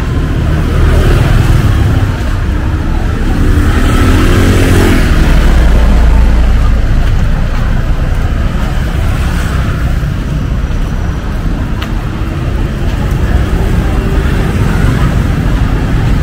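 Street traffic heard close up: vehicle engines running and passing over a constant low rumble. One engine rises and then falls in pitch about three to five seconds in.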